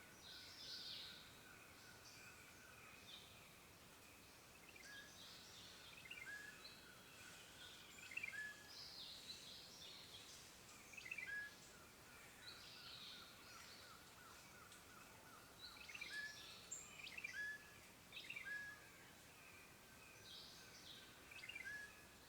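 Faint woodland birdsong: several birds chirping and calling in short phrases every second or two over a soft, steady background hiss.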